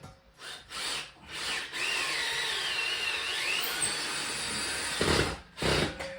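Power drill run in a few short bursts, then held for about three seconds with its pitch wavering under load, then two brief louder bursts near the end.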